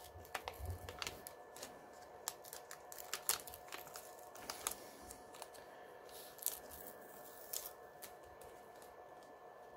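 Faint scattered clicks, ticks and crinkles of fingers working a laptop display's ribbon-cable connector and its sticky tape, over a low steady hum.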